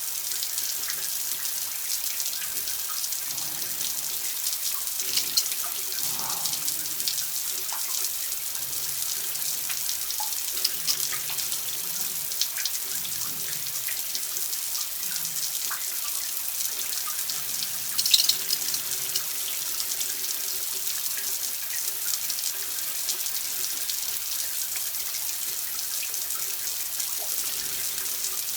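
Water running steadily, like a tap into a sink, with a continuous hiss and scattered small drips and splashes; one brief sharper splash about eighteen seconds in.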